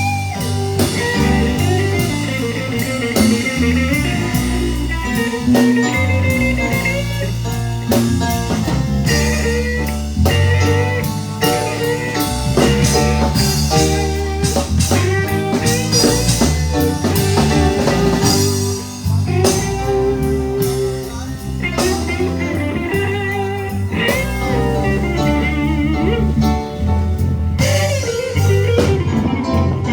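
Live blues band playing a slow blues instrumental break: a lead electric guitar plays bent notes over bass and a drum kit, with no singing.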